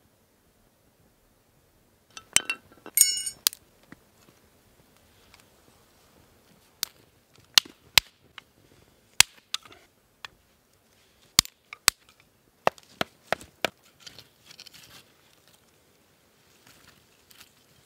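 Small wood fire on a flat stone being tended and fed kindling: loud, sharp snaps and cracks come at irregular intervals over quieter crackling. A brief high squeak rings out about three seconds in.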